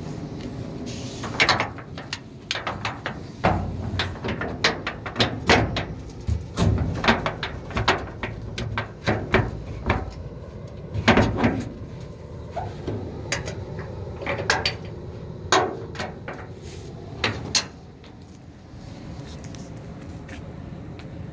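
Irregular knocks and clunks on a small truck's corrugated steel cargo bed, as of someone stepping about on the bed floor, several a second at times. They stop about three-quarters of the way through.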